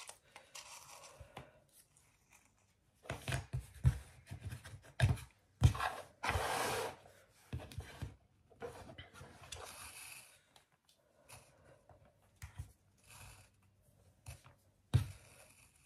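Hands threading a hen-shaped ornament onto a cord garland with a needle: scattered light knocks and clicks on a wooden tabletop, with a couple of longer scratchy rubs as the cord is drawn through.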